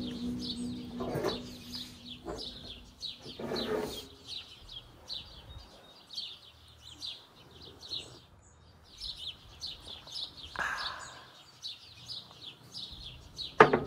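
Small birds chirping, a quick run of short high chirps repeating several times a second throughout. There is a sharp click near the end.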